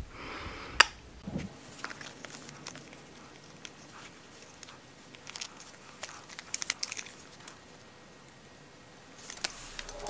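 Faint scattered clicks and rustles of a metal shoe buckle being worked onto the leather latchet straps of an 18th-century shoe, with one sharper click near the start.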